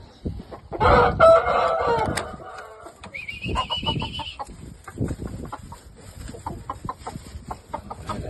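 A rooster crowing once, about a second in, a short call lasting just over a second, followed by a thin high call and scattered light knocks and scratching.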